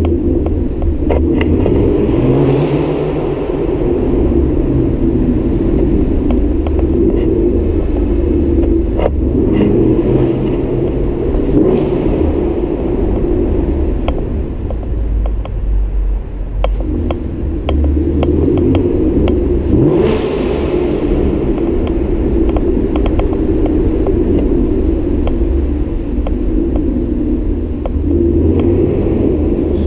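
2016 Ford Mustang GT's 5.0-litre V8 with a Corsa Extreme exhaust, a steady deep exhaust rumble while driving slowly, swelling louder under throttle about two seconds in and again about twenty seconds in.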